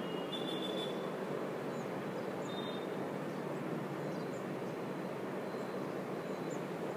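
Steady low hum and hiss of room and line noise on an online call, with no voice coming through. Two faint short electronic tones sound in the first three seconds.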